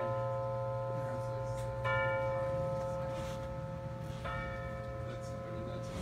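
Bell chimes struck twice, about two and a half seconds apart, each ringing on with several clear tones over a low steady hum.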